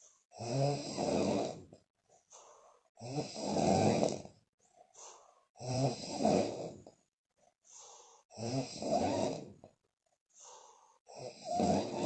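A woman snoring loudly with puffing lips: five loud snores, about one every two and a half to three seconds, with fainter breaths between them.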